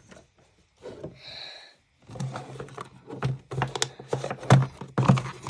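Quick, irregular clicks and taps of hard plastic being handled, like typing, starting about two seconds in after a brief hiss.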